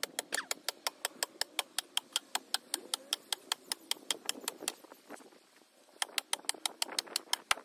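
Hammer blows on the retaining-wall timbers: a fast, even run of sharp strikes, about six a second. They break off about five seconds in and start again around six seconds.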